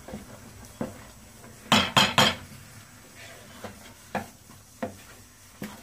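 Wooden spoon knocking against the side of a pot while stirring thick ragi (finger millet) flour into boiling water to make ragi mudde. The knocks are irregular, with three loud ones in quick succession about two seconds in.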